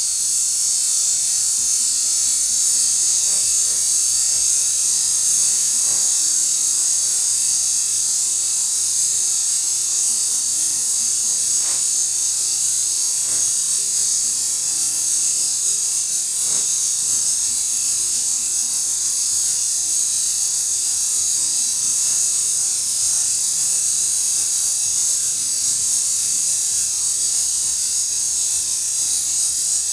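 Eastern diamondback rattlesnake shaking its rattle in a steady, unbroken high buzz, the snake's defensive warning.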